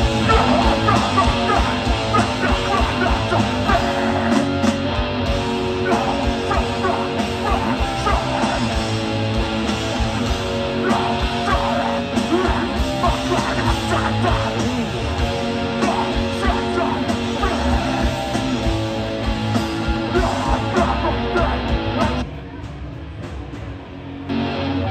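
Live hardcore punk band playing loud: electric guitars, bass and drums with vocals. About 22 seconds in the full band cuts out to a quieter stretch, and a guitar comes back in at the very end.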